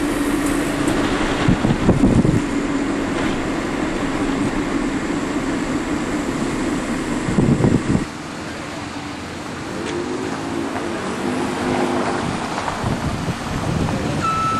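Steady engine drone and road noise heard from inside a moving car. About eight seconds in it cuts to quieter outdoor vehicle noise, and a truck's reversing beeper starts at the very end.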